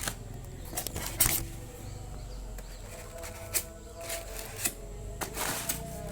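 Background music with steady tones, under scattered sharp clicks and short rustles from handling an unboxed item; the loudest click comes about a second in.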